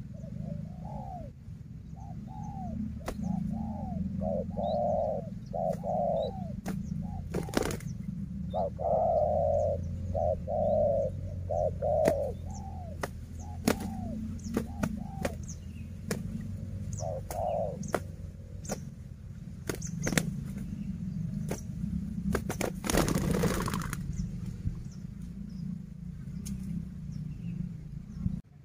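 Spotted doves cooing in repeated short phrases, mostly in the first two-thirds, with wing flapping as the birds face off. A louder rustling burst lasts about a second near the end, over a steady low hum.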